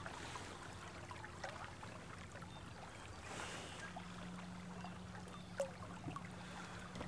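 Faint river water lapping and trickling around the landing net and boat, with a few small knocks. A faint steady hum comes in about four seconds in.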